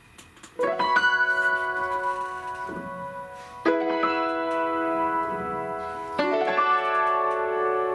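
Piano playing three slow chords, each struck and left to ring, about two and a half seconds apart.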